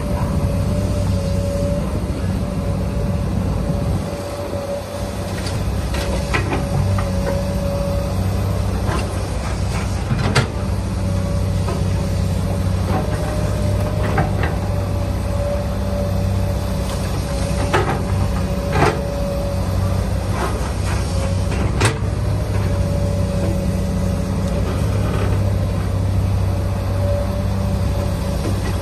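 A steady low mechanical drone with a faint held tone, broken now and then by sharp clicks and scrapes of plastic toy trucks and a toy excavator being pushed through sand.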